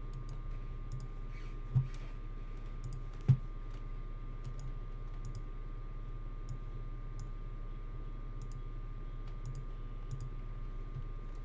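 Scattered clicks of a computer mouse and keyboard while a spreadsheet is brought up, with two louder knocks a little under 2 seconds and about 3 seconds in. A steady low electrical hum runs underneath.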